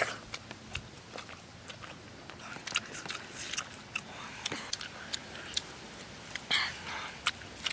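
Someone biting and chewing soft, ripe jackfruit flesh, with irregular sharp wet clicks from the mouth and a short louder noise about six and a half seconds in.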